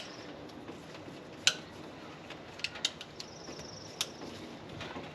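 A few scattered light metallic clicks and taps of hand tools on the timing chain guide bolts as they are tightened, with a faint high steady trill for about a second, three seconds in.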